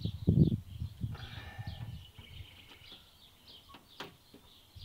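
Birds chirping in the background, with handling noise: a dull bump in the first half second, a crackly rustle about a second in, and a couple of light clicks near the end.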